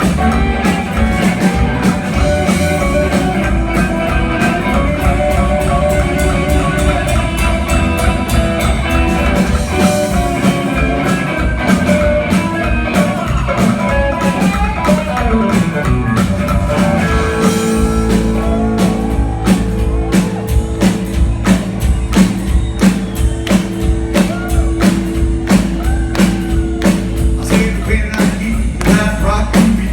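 Rockabilly band playing live: electric guitar, upright bass and drums. A busy run of guitar notes gives way about halfway through to held notes over a steady drum beat.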